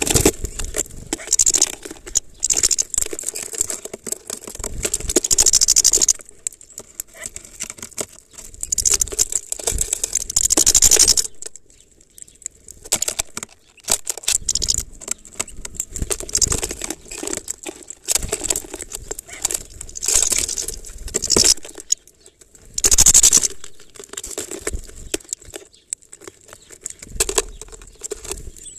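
Hawfinch rummaging and pecking in black sunflower seeds inside a plastic feeder: seeds rattling and clicking against each other and the plastic, in irregular bursts with short pauses.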